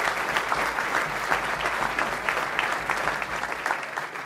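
Applause from the council members and public, a dense patter of many hands clapping that starts to thin out near the end.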